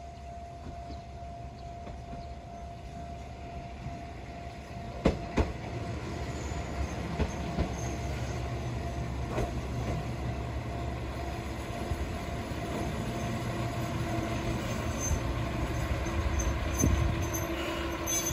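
Diesel railcar on a non-electrified line approaching along the track, its low engine and wheel rumble growing steadily louder. Two sharp clicks come about five seconds in, and a steady hum joins the rumble in the second half.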